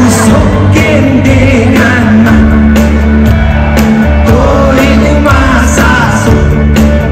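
Live pop-rock band playing loudly: a male lead singer over drums and electric bass guitar, with a strong steady bass line and regular drum hits.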